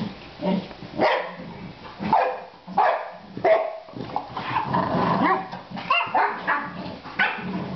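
Boxer dogs play-fighting: a run of short, sharp barks and yips, several a second at times, with growling between them.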